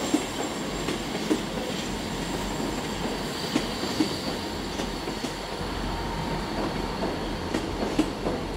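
A pair of Class 159 diesel multiple units moving slowly through the platform, with a steady running rumble and hum. Short wheel knocks come every second or so, and a faint high squeal rises for a second or two in the middle.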